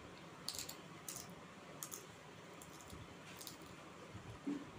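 Mouth sounds of eating by hand: a handful of short, wet clicks and smacks of chewing and licking the fingers, with a brief low sound near the end.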